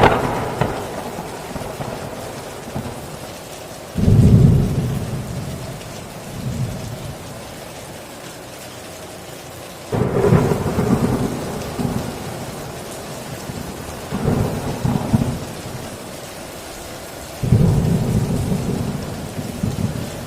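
Heavy rain falling steadily on a tin roof, with repeated thunder rumbles. Sudden low rolls start right at the beginning, about four seconds in, around ten seconds in and near the end, each dying away over a few seconds, with a smaller rumble in between.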